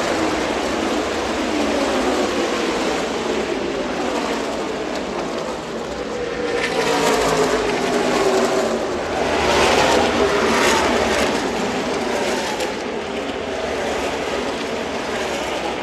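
NASCAR stock cars' V8 engines running past on the oval, a continuous drone whose pitch falls as each group of cars goes by. It swells louder about seven and ten seconds in.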